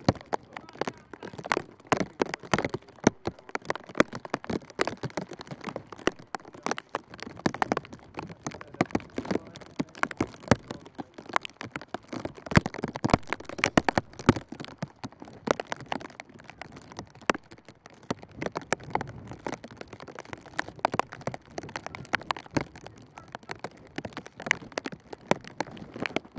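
Many sharp clicks and taps at an irregular pace, several a second, with some of them louder than the rest.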